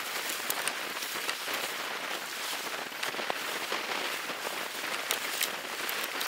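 Stiff sailcloth rustling and crackling as it is handled on deck: a steady hiss with many small crackles.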